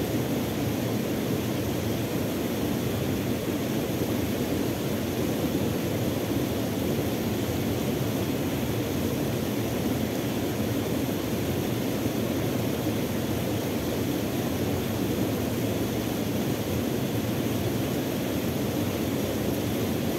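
Steady rushing of a small cascade pouring into a river pool, mixed with falling rain.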